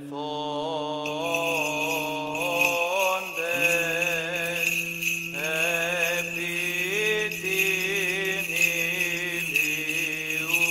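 Byzantine chant: a cantor sings a slow, ornamented melody over a held low drone (the ison). From about a second in, small bells jingle continuously over the singing.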